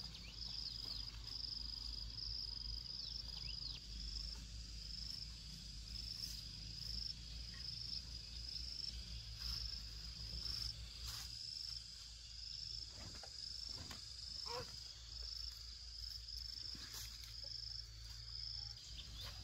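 An insect chirping steadily at a high pitch in an even pulsing rhythm, about two pulses a second. A few faint clicks sound now and then in the second half.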